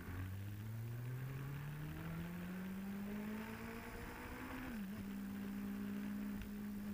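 Motorcycle engine accelerating, its pitch rising steadily, then a quick dip as it shifts up a gear about five seconds in, after which it runs at a steady pitch. Picked up through a Bluetooth helmet-headset microphone.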